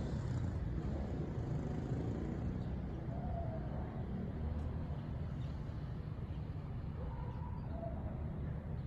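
Distant Boeing 737 MAX 9 airliner climbing high overhead, its CFM LEAP-1B jet engines heard as a steady low rumble. A few faint short chirps come through above it.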